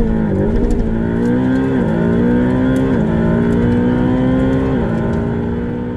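Ferrari 488 Pista's twin-turbo V8 at full throttle, heard from inside the cabin, pulling hard through the gears. The engine note climbs and drops sharply with each of four quick upshifts, about a second apart.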